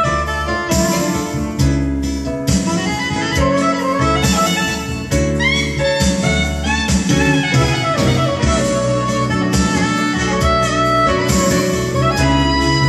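A 1990 Cantopop song playing from a vinyl record on a Technics SL1200MK5 turntable, in an instrumental passage without singing: a lead melody over a steady drum and bass beat, with a few gliding notes about halfway through.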